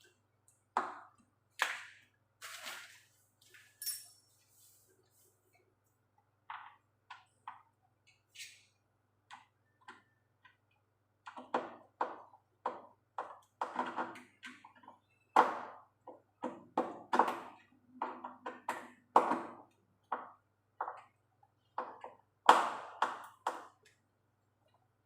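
Irregular short clicks and knocks, some with a brief ring, from hands working on a washing machine's door handle assembly as parts are fitted and fastened; sparse at first, coming thick and fast in the second half.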